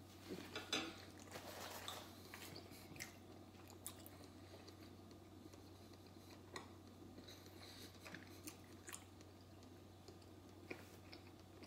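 Faint chewing of food with the mouth closed, with a few soft scattered clicks, over a low steady room hum.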